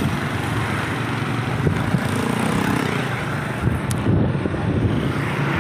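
Motorcycle engine running steadily while riding, with wind rushing over the microphone and road traffic around it.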